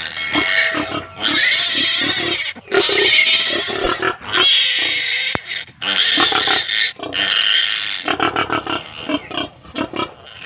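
Day-old piglet squealing loudly in a run of about seven long, harsh squeals, each around a second, while it is held to have its needle teeth clipped.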